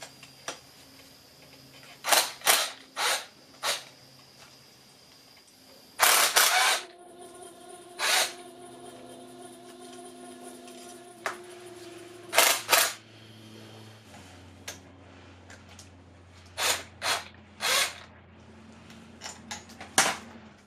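Metal clicks and clinks of hand tools and bolts on an air compressor's motor housing as its rear-cover bolts are taken out. The sharp knocks come in short clusters, with a faint steady hum in the middle.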